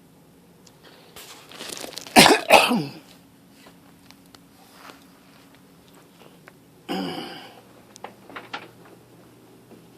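A person coughing hard twice about two seconds in, then clearing their throat about seven seconds in, over a faint steady hum.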